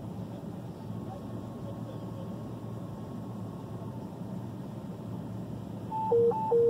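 Steady low hum of a vehicle cab. About six seconds in, a radio's two-tone dispatch alert starts, loud, switching between a high and a low note several times a second. It is the alert that comes before an EMS dispatch call.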